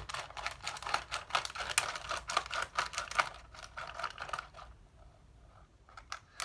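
Plastic water bottle being worked at by hand: a fast, irregular run of clicks and scratches that stops about four and a half seconds in, with a few faint clicks near the end.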